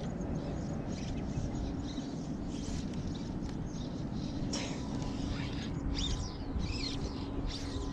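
Steady wind rumble on the microphone, with scattered short, high bird chirps in the second half.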